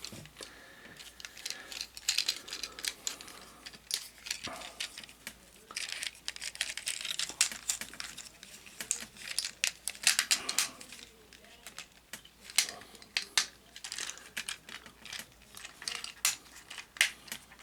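Hard plastic parts of a Cyberverse Drift transforming action figure being handled and folded into car mode: irregular small clicks, knocks and rattles.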